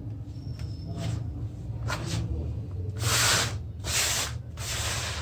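Hands scooping, crumbling and rubbing damp red sand paste against a plastic basin, making gritty swishing strokes. The two loudest come about three and four seconds in.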